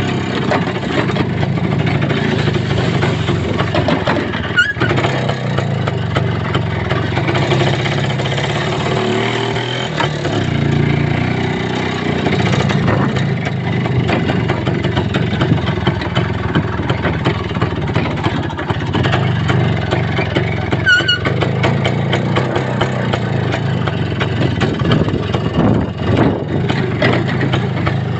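A motor vehicle's engine running steadily while driving, with a continuous rumble and rattle. Two brief high squeaks cut through, one about five seconds in and one about two-thirds of the way through.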